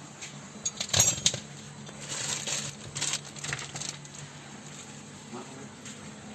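Clinks and clatter of small hard objects being handled, with a cluster of sharp knocks about a second in and a few seconds of scraping and clicking after, over a faint steady hum.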